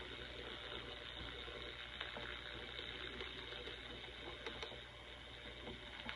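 Faint steady hiss and static from a Crown HT 460 transistor AM radio's speaker, over a low hum, with a few small clicks. The radio under repair is giving only weak sound.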